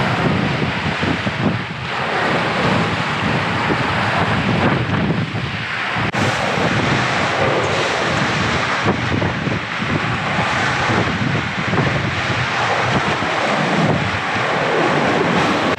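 Water rushing and churning along the hull and in the wake of a Leopard 45 cruising catamaran moving through rough, breaking seas, with wind buffeting the microphone throughout.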